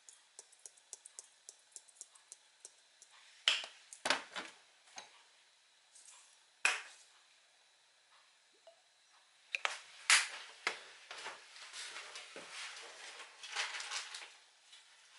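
Seasoning shaken from a shaker over a steel bowl, a quick run of light ticks about five a second, then sharp clicks and knocks as caps and containers are handled, with a busier stretch of clicking and rustling in the second half.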